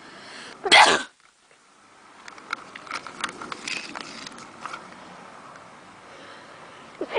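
A person sneezes sharply less than a second in, then sniffs and breathes with small clicks for a few seconds, and starts another sneeze right at the end.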